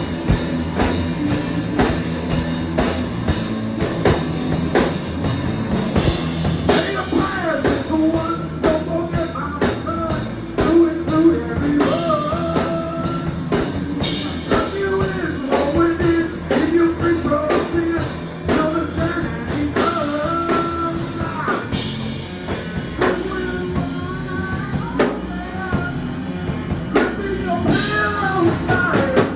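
Rock music with a steady drum-kit beat and guitar; a singing voice comes in about seven seconds in.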